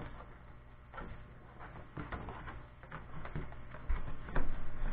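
Paper and cardboard packaging being handled: rustling and sliding as a manual and a card are drawn from a cardboard sleeve, with scattered small clicks and a few louder knocks against the table near the end.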